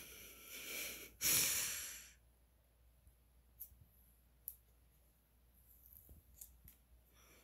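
A person breathing out heavily twice, like sighs; the second breath is the stronger and lasts about a second. After that there are only a few faint ticks.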